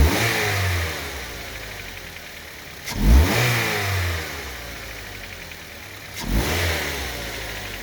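Mazda 6 GH 2.5i engine blipped three times from idle, about three seconds apart, each rev rising and settling back. The engine has a knock from its right-hand side that shows when it is cold and is loudest between 1300 and 1500 rpm.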